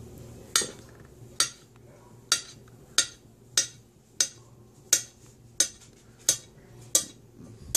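Kitchen knife slicing sausage into small pieces on a plate: a sharp tap of the blade on the plate about every two-thirds of a second, about eleven in all.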